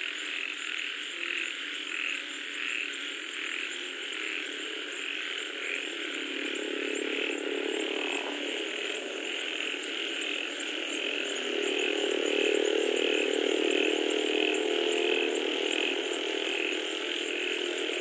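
A dense night chorus of frogs: rapid, evenly repeating pulsed calls, with a lower steady drone that swells in about six seconds in and grows louder near the two-thirds mark.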